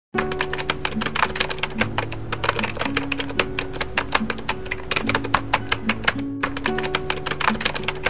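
Background music: held bass and shifting chords under a fast, busy clicking percussion that sounds like typing.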